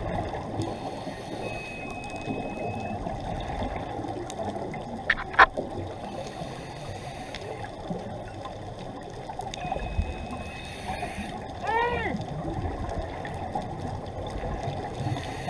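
Underwater ambience picked up through a waterproof camera housing: a steady muffled wash. Sharp clicks about five seconds in are the loudest moment, and a short pitched call comes near the twelve-second mark.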